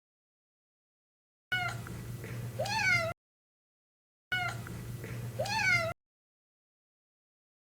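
Domestic cat meowing: the same short recording plays twice, each time ending in a loud meow that rises and then falls in pitch, with a low steady hum under it and dead silence between the two plays.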